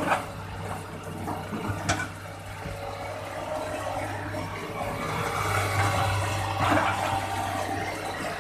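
Hitachi excavator running, with a steady low engine hum under a rushing noise that swells in the second half, and two sharp knocks, one at the start and one about two seconds in.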